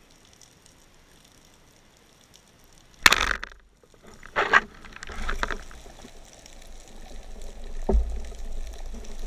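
Band-powered speargun firing underwater: a sharp, loud crack about three seconds in. A second loud burst follows, then several seconds of scuffling and knocking with a low thump as the speared fish is hauled in and handled at the gun.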